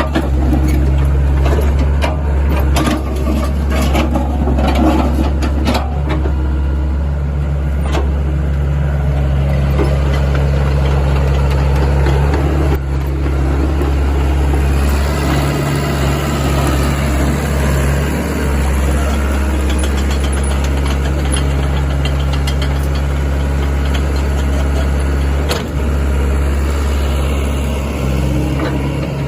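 Sany SY75C-9 mini excavator's diesel engine running steadily while the machine is worked, with clanks and knocks in the first several seconds.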